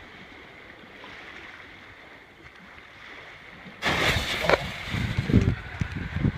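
Green visco fuse burning with a faint steady hiss, then about four seconds in a sudden loud blast as the consumer artillery-shell mortar tubes fire together, followed by a string of bangs and crackles.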